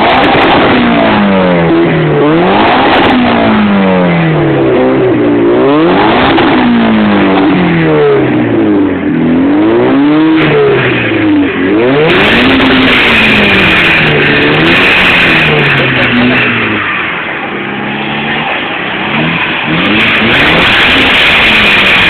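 Mitsubishi Lancer Evolution's turbocharged four-cylinder engine revved hard again and again through its exhaust for a decibel sound check, loud (measured at about 125 dB at one metre), its pitch climbing and dropping every second or two. From about halfway a steady high whine of the turbo joins in.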